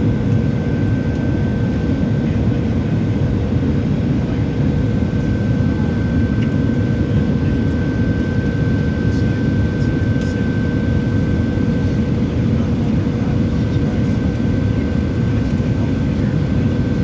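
Steady cabin noise inside a Boeing 737-700 descending to land with flaps extended: a heavy low rumble of CFM56 turbofan engines and airflow, with a steady mid-pitched hum and a higher whine held throughout.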